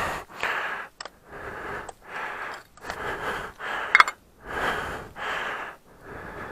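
A person breathing heavily close to the microphone, a puff in or out about every second, with a few short clicks in between.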